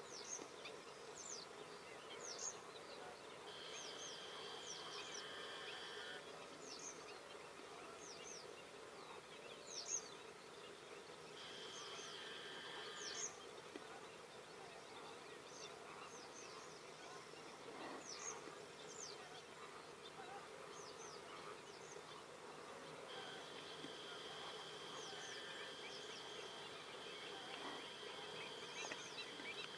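Faint marsh ambience: a steady insect buzz under many short, high bird calls that drop in pitch, scattered through the whole stretch. A high, steady insect or bird trill sounds in three stretches, the longest starting a little before the end.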